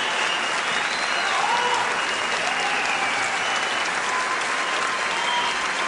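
Large audience applauding steadily, a dense, even clatter of many hands clapping.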